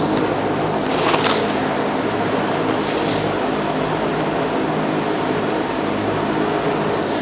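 AAON rooftop HVAC unit running, a steady mechanical drone with a low hum and a high hiss. A brief rattle comes about a second in.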